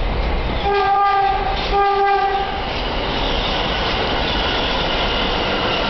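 NYC subway R160 train sounding two horn blasts of about a second each, then the steady clatter and rumble of the train running past.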